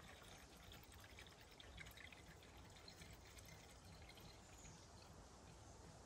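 Faint, steady pour of engine coolant from a plastic gallon jug into a plastic coolant reservoir tank.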